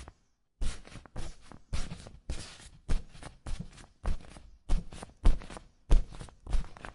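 Footsteps walking across a dry inflated air mattress, about two steps a second. Each step gives a deep, hollow thump with a rubbery, squeaky rustle of the vinyl after it. The steps begin after a brief silence at the start.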